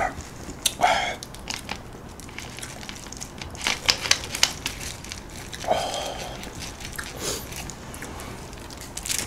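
Plastic soda bottle being handled and its screw cap twisted on: a scatter of small clicks and crinkles, bunched together about four seconds in.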